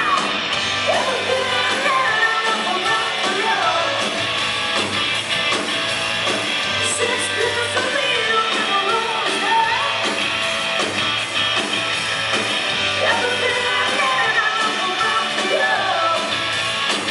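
Hard rock band playing live, with electric guitars, bass and drums under a woman's lead vocal, heard from the audience.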